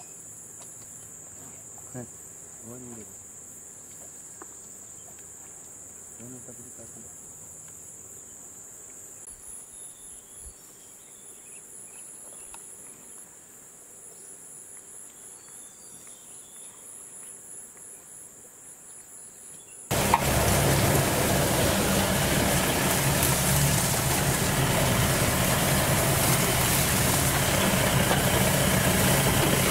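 A steady, high-pitched insect chorus of crickets or cicadas. About two-thirds of the way through it cuts suddenly to the much louder running of a safari jeep's engine as the jeep drives.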